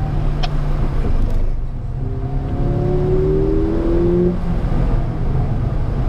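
Mercedes-AMG A45's turbocharged four-cylinder engine heard from inside the cabin during hard track driving: a steady loud drone. From about two seconds in the revs climb in a rising tone, which stops just after four seconds.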